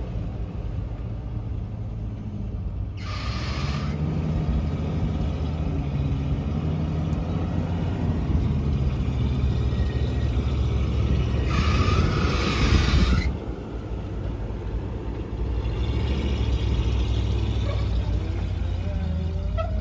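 1974 Ford F600 dump truck's engine running as the truck drives slowly, getting louder toward about twelve seconds in, then dropping sharply. Two short bursts of hiss come about three seconds in and about twelve seconds in.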